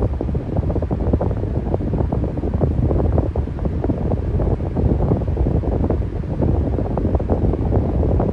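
Electric fan running steadily: a low rush of air, with its airflow buffeting the microphone in quick, irregular flutters.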